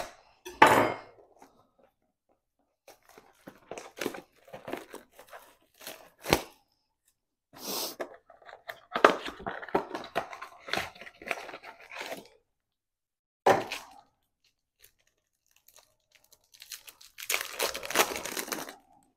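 Cardboard blaster box being opened and a foil trading-card pack being torn open, heard as separate bursts of tearing and crinkling with a few sharp clicks; the longest crinkling comes near the end.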